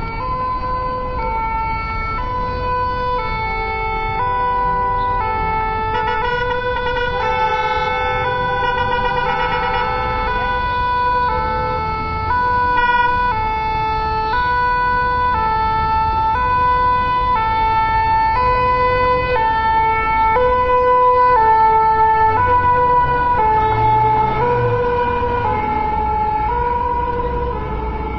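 Two-tone 'pin-pon' siren of a fire brigade VSAV rescue ambulance, switching back and forth between a high and a low note about once a second. Road traffic runs underneath it.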